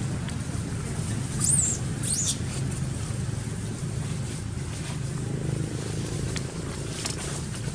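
Two short, high-pitched squeaks about a second and a half and two seconds in, each sliding up and down in pitch, over a steady low rumble.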